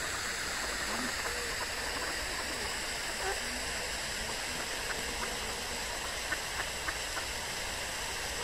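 Steady rushing of running water, with a few faint short high pips in the second half.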